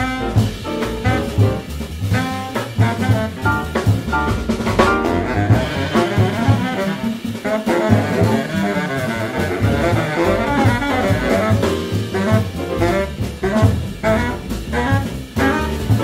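Small jazz group playing live, medium-tempo hard bop: a baritone saxophone carries the line over piano, walking upright bass and drum kit.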